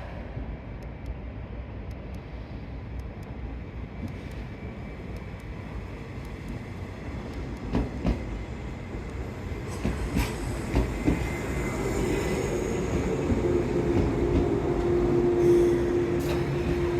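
Train approaching and passing, its running noise growing steadily louder, with a few sharp rail clicks about halfway through and a steady tone joining in over the last few seconds.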